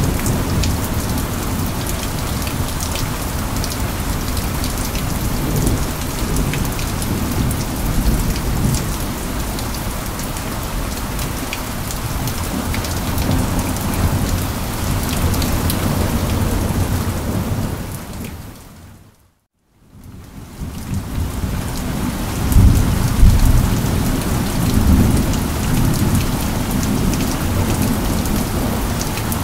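Steady heavy rain pouring, with deep rumbles of thunder that swell louder in the last third. About two-thirds of the way in, the sound fades out to silence for about a second, then fades back in.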